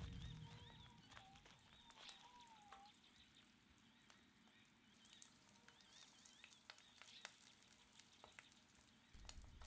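Faint crackling and popping of eggs and bacon frying on a barbecue grill. A faint wavering tone comes and goes over the first few seconds, and a low hum starts near the end.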